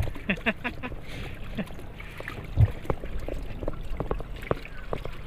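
Sea water sloshing and gurgling against a small float craft, with scattered light knocks from the craft and a dull thump about two and a half seconds in.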